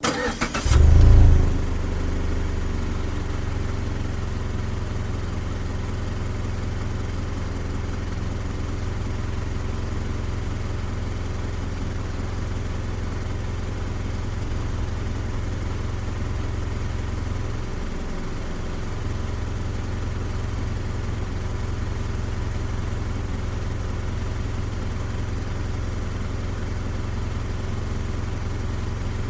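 Mazda CX-5 engine heard from outside beside the car: the starter cranks for under a second, the engine catches with a short rev flare about a second in, then settles into a steady idle.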